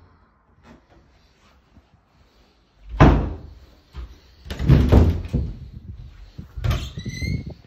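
Panelled double cupboard doors being opened: a loud knock about three seconds in, a cluster of knocks and rattles around five seconds, and more knocks near the end with a short squeak.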